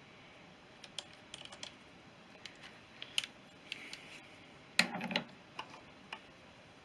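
Light metallic clicks and taps of hand tools being handled on a motorcycle clutch, irregular and scattered, with a louder clatter of knocks about five seconds in.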